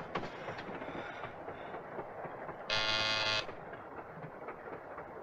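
Passenger train running along the track, a steady rumble with light clicks. A short, steady train horn blast lasts under a second about three seconds in.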